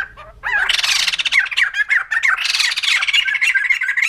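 White-crested laughingthrush giving its loud laughing chatter: harsh cackling mixed with quick wavering whistled notes, starting about half a second in and carrying on without a break.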